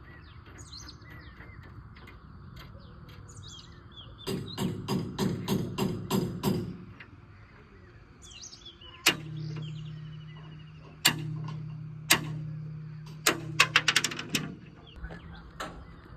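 Hammer blows on the steel front bucket of a JCB backhoe loader while its teeth are fitted, typical of driving in the tooth retaining pins. First comes a quick run of about seven blows, then three single heavy blows that each leave the bucket ringing with a low hum that slowly fades, then a fast flurry of blows near the end. Birds chirp faintly at the start.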